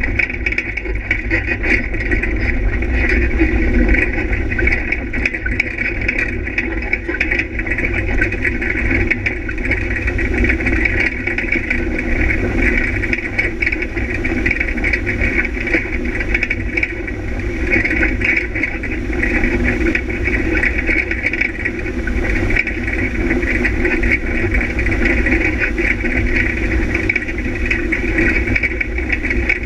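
Engine of an off-road vehicle running at a fairly steady pace, heard onboard as it drives along a rough dirt track, with low rumble from the ground and the ride.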